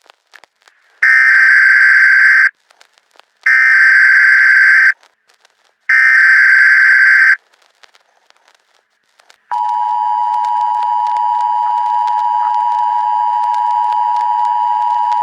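Emergency Alert System tones: three identical screeching data bursts of the SAME header, each about a second and a half long, then, after a pause, the steady two-tone attention signal that holds on.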